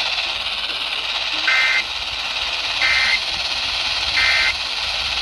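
Three short two-tone data bursts about 1.3 seconds apart: the SAME end-of-message code that closes an Emergency Alert System warning broadcast, heard over steady radio static hiss.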